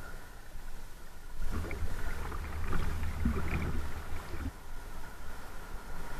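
River water rushing and splashing around a kayak, with irregular paddle splashes and wind rumbling on the camera's microphone.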